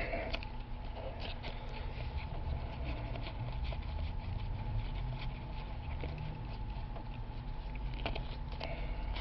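Football trading cards being handled and flipped through one by one: light scattered ticks and slides of card stock over a faint steady hum.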